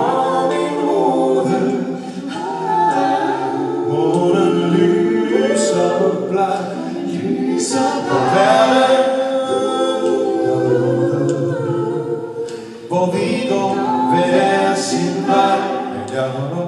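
A vocal group of men and women singing together in close harmony, with held chords that shift from note to note.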